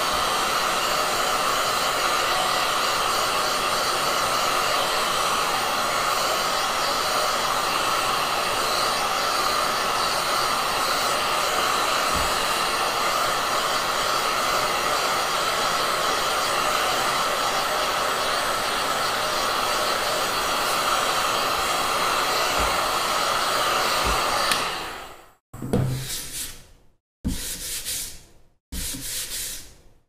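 Black+Decker KX1800 heat gun blowing hot air steadily to dry water-based paint on a board. It stops about twenty-four seconds in, and three short bursts of other sound follow.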